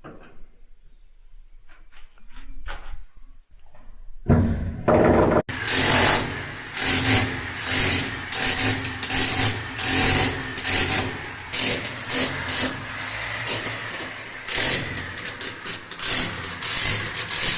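A few faint clicks and handling knocks, then about four seconds in an electric power tool starts and runs under load with a steady high whine, its noise surging and easing again and again.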